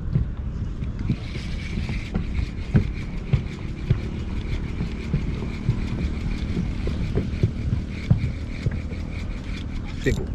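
Phantom 54 lb electric trolling motor on a kayak running with a steady high whine, which starts about a second in and stops near the end, over a low rumble of water and hull noise with small knocks throughout.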